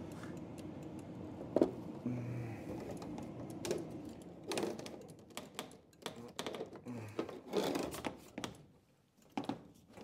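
Irregular clicks, taps and knocks of hands handling a small plastic condensate pump and its tubing and wires, over a low steady hum.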